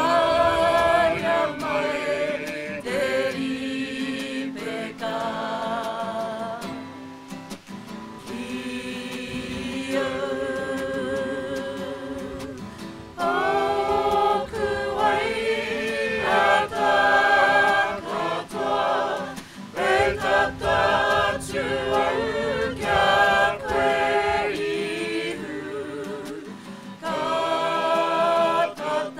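A mixed group of men's and women's voices singing together in harmony, in sung phrases of several seconds each with short pauses between them.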